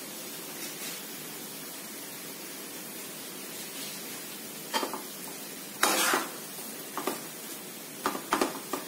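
Spoon stirring a vegetable stuffing in a pan, scraping and knocking against the pan a few times in the second half, the loudest about six seconds in, over a steady low hiss.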